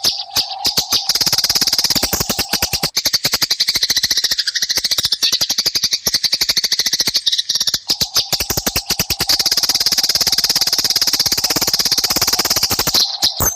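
Eurasian tree sparrows giving the fast, harsh, continuous chattering of fighting birds, a rapid stream of high notes. A steady lower hum runs underneath for the first few seconds and again from about the middle on.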